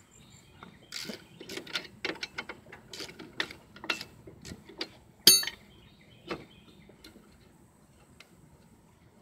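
Hand socket ratchet clicking in short irregular runs as a brake caliper bolt is backed out, with one sharp ringing metal clink about five seconds in and a last click a second later.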